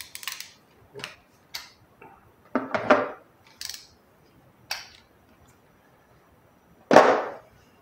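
Chrome steel sockets, an extension bar and a ratchet from a Scheppach TB 217 socket set clinking and clattering against each other and the case as they are handled and put back. About seven separate clinks, with a short cluster about three seconds in and the loudest clunk near the end.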